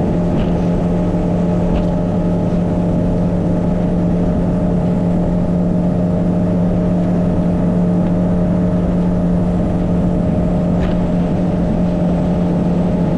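Boat outboard motor running at a steady cruising speed, an even engine drone.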